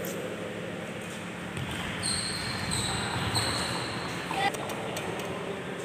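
Badminton rally on a wooden indoor court: a few sharp racket hits on the shuttlecock, the loudest about four and a half seconds in, echoing in a large hall over faint background voices. A high, steady squeak-like tone comes and goes a few times in the middle.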